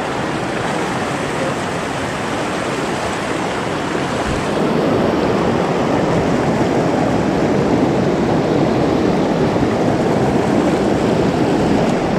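Rushing mountain stream water, a steady dense rush that grows louder about four and a half seconds in.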